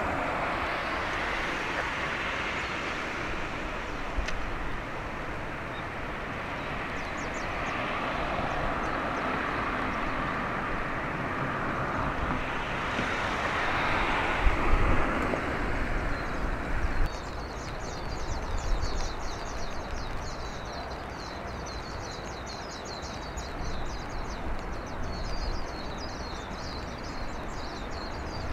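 Outdoor ambience: a steady rumble and hiss, then many rapid high chirps that start about two thirds of the way through and keep going.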